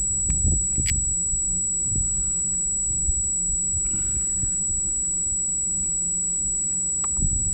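Wind buffeting an outdoor microphone as a steady low rumble, with a thin high-pitched tone held throughout and a few light clicks in the first second.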